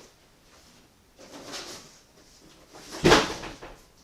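A short scraping rustle about a second in, then one loud thump a little after three seconds, as of an object being set down or shut.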